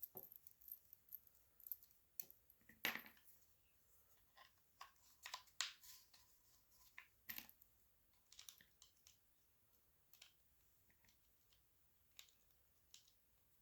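Scattered small clicks, taps and light scrapes of small parts of an M17 G3 paintball marker's receiver being handled and fitted by hand, irregular and quiet, with a couple of sharper knocks about three and seven seconds in.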